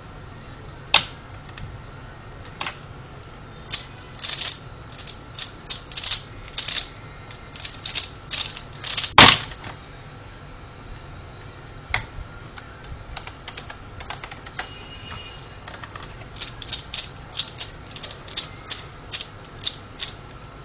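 Plastic Pyraminx puzzle clicking in quick irregular bursts as its faces are twisted in a speedsolve. One much louder clack comes just past nine seconds in, then a pause, and the clicking picks up again near the end.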